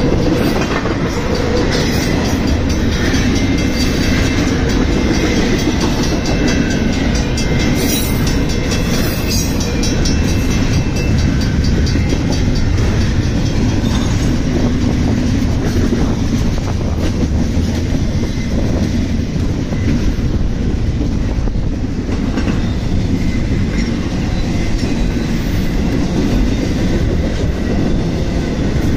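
Double-stack intermodal freight train passing close at speed: a loud, steady rumble of the container well cars, with wheel clatter over rail joints and a run of sharp clicks about a third of the way through.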